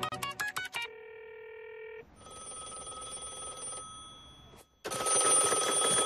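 Cartoon telephone call: quick clicks of a number being dialed, a steady tone for about a second, then a telephone bell ringing, faint at first and loud from about five seconds in.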